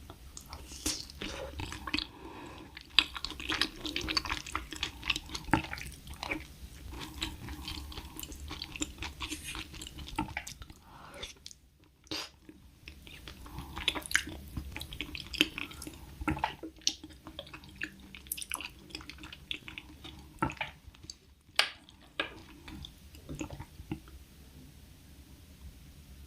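Close-miked chewing: a person eating, with wet mouth sounds, smacks and occasional soft crunches.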